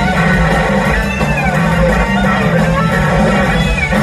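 Live band music led by an electric slide guitar, playing a lead line full of gliding, bending notes over steady bass and drums.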